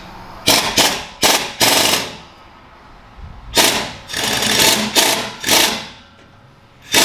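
Impact wrench rattling in two rounds of short bursts with a pause between, undoing the 14 mm (9/16) bolts that hold the exhaust pipe's donut flange to the manifold.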